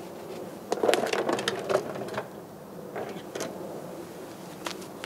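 Knocks, clatter and scraping of a plastic oil drain container being set down and slid into place on the ground under a jacked-up van. Most of it comes in a burst about a second in, followed by a few single knocks.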